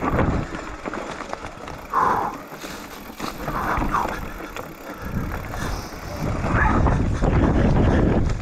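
Mountain bike descending a loose, rocky trail: tyres crunching over stones and the bike rattling with many small knocks. A low rumble eases off and then comes back stronger about five seconds in.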